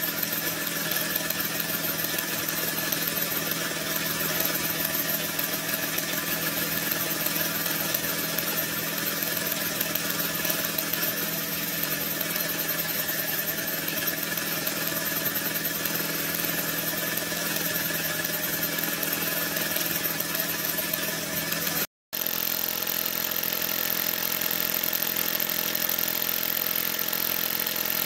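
Mamod MM2 toy steam engine, with a single oscillating cylinder, running at full speed: a steady, fast, even running sound with hiss. It breaks off for an instant about three-quarters of the way through and carries on.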